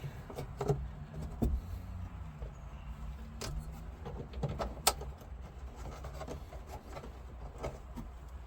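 Glove box liner being pushed and clipped into a car's dash opening: scattered knocks and clicks of handling, the sharpest about five seconds in, over a low steady hum.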